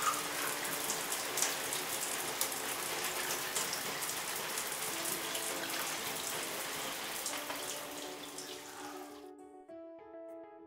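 Shower water running in a steady hiss, with background music playing underneath. The water cuts off suddenly about nine seconds in, leaving only the music.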